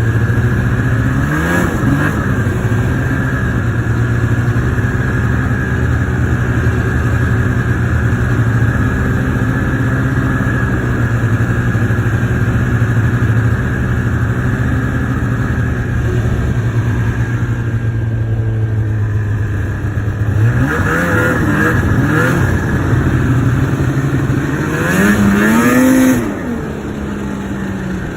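Two-stroke snowmobile engine running at a steady speed, revved up briefly twice near the end, then dropping back to a lower, quieter run.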